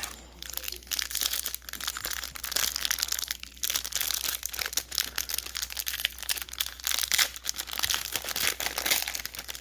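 A hockey card pack's wrapper being torn open and crinkled by hand: a dense, continuous crackling of many small sharp clicks.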